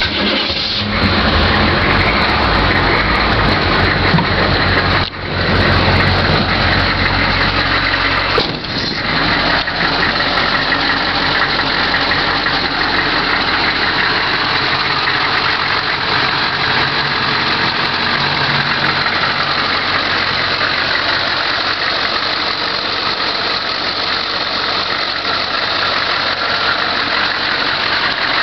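1988 GMC 6.2-litre V8 diesel cold-starting. It catches about a second in and then idles steadily.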